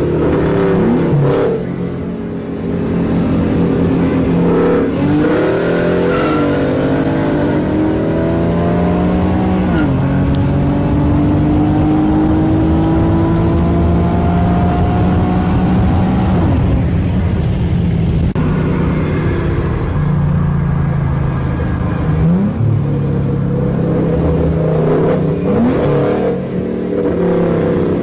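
Car engines at full throttle in a highway roll race alongside a Ford Mustang GT 5.0, heard from inside one of the cars. The pitch climbs through each gear and drops back at several upshifts, over steady road and wind rumble.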